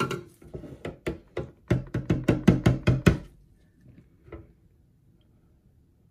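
Immersion stick blender's head knocked against the bottom of a plastic container of soapmaking oils about a dozen times in quick succession, burping the trapped air out of the blade guard before blending. The knocks quicken and stop about three seconds in.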